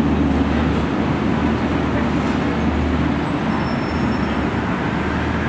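City transit bus engine running with a steady low drone as a bus turns and pulls along the street close by, over general traffic noise.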